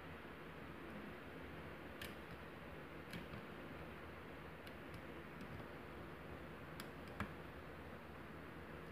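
Faint, irregular small clicks of a lock pick working the pins inside a Kwikset SmartKey lock, the strongest about seven seconds in, over a steady low hiss and hum.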